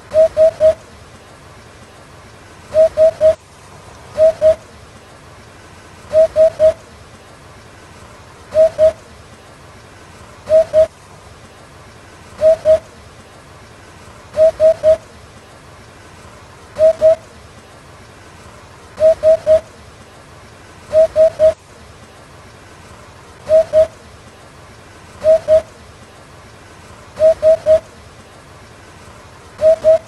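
Eurasian hoopoe calling: short, low hooting notes in groups of two or three, repeated about every two seconds over a faint steady hiss.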